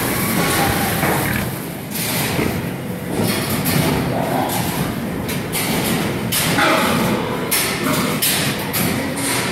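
Busy sow-barn din: many pigs calling over knocks and rattles of steel feeding stalls, loud and continuous with irregular sharp squeals and clatters.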